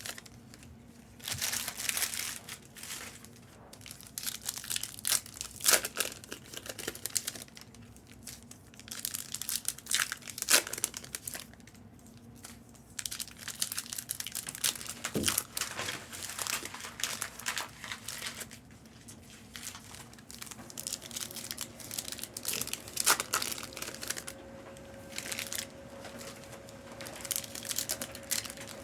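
Trading-card pack wrappers crinkling and tearing in irregular bursts as Topps Chrome packs are opened and handled.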